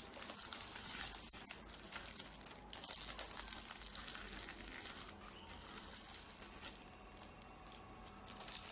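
Small pink toy wrapper being crinkled and torn open by hand, a busy crackling rustle that eases off briefly near the end and then starts again.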